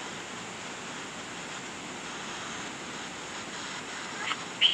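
Steady, even hiss of background noise, with a brief high-pitched sound near the end.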